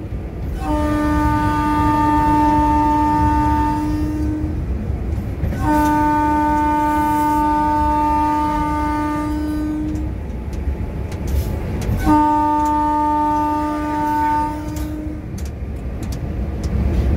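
Locomotive horn sounding three long, steady blasts at one pitch, each about three to four seconds long, heard from inside the cab. Under the horn the moving train's running rumble continues throughout.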